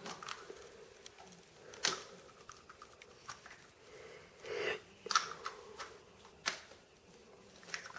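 Light handling noises in a small room: a few sharp clicks spread out over several seconds, with faint rustling between them.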